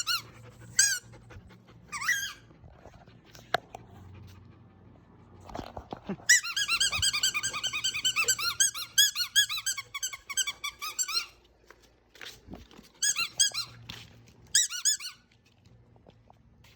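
A German Shepherd chewing a squeaky toy ball, squeezing out short high squeaks in quick groups, with a long rapid run of squeaks in the middle.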